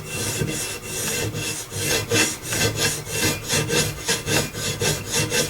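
A metal file being draw-filed along a rifle barrel: quick, even rasping strokes, several a second, as the old high-polish finish is taken off the barrel.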